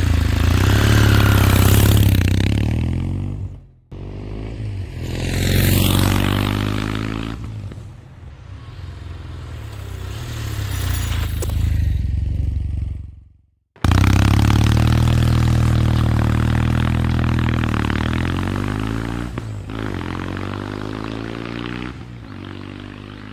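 Kawasaki W800's air-cooled parallel-twin engine running as the motorcycle rides off and passes by in several edited clips. The engine note swells and fades repeatedly, rising in pitch about five seconds in, with abrupt cuts about four and fourteen seconds in.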